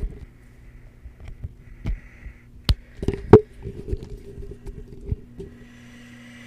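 Handling noise on a corded handheld microphone: knocks, rubs and dull thuds as it is held and shifted, with two sharp clicks about three seconds in, the loudest sounds. A steady low electrical hum runs underneath, and a faint hiss comes in near the end.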